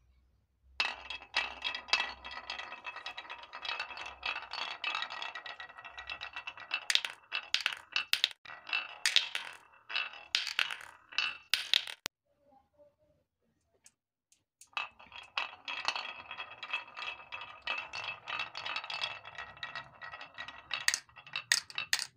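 Marbles rolling down a carved wooden serpentine chute: a steady rattle with knocks as they swing around the bends, ending in a run of sharp clicks as they drop out of the chute and strike each other and a plastic toy dump truck. After a pause of about two seconds a second run of marbles rattles down the track the same way, ending in clicks.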